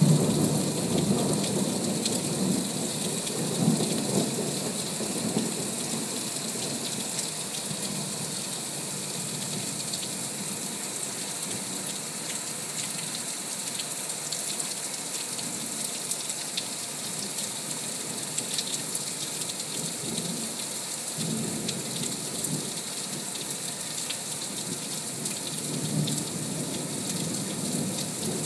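Heavy rain falling steadily in a thunderstorm, with thunder rumbling in the first few seconds and briefly again later.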